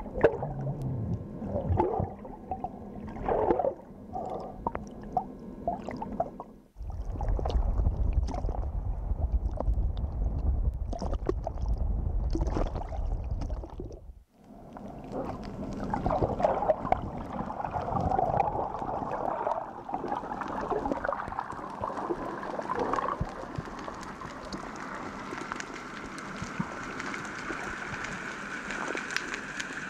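Sea water heard through an underwater camera, in three cut-together stretches: knocks and clicks at first, then a strong low rumble of choppy water at the surface, then, after a cut about 14 seconds in, a steady underwater hiss with faint crackling.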